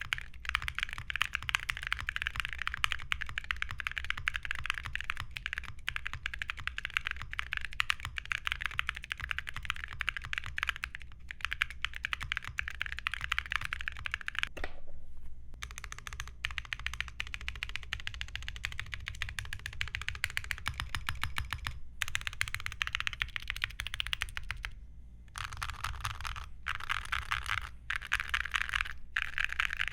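Typing on a QK75 mechanical keyboard fitted with Cerakey ceramic keycaps: a fast, steady stream of keystroke clicks, broken by a few short pauses.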